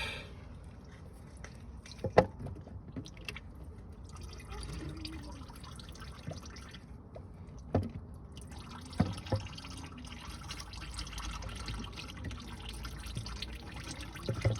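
Transmission oil dripping and trickling from an open DQ500 DSG gearbox as its mechatronic unit is worked loose. A few sharp knocks stand out, about two seconds in, near eight seconds and twice around nine seconds.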